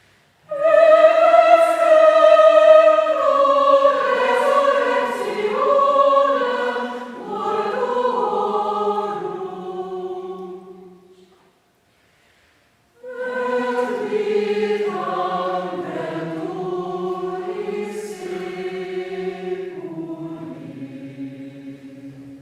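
Mixed choir singing two sustained phrases of a Mass setting, with a break of about a second and a half between them.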